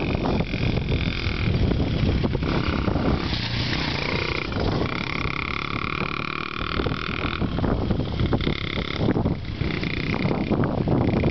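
Wind buffeting the microphone in a steady low rumble. Over it, a high, steady whistling tone comes and goes in stretches of a second or two.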